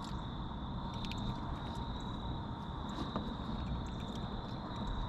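Insects trilling steadily at one high pitch over a low background rumble, with a couple of faint clicks.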